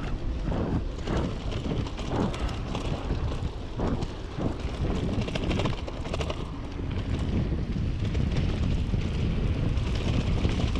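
Wind buffeting the microphone over the rumble and rattle of mountain bike tyres rolling at speed over a dirt trail, with many small knocks from bumps along the way.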